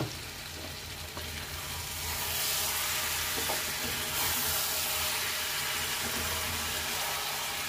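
A pan of potato and small brinjal curry sizzling and bubbling in oil and tomato juice with the lid off: a steady hiss that grows louder about two seconds in.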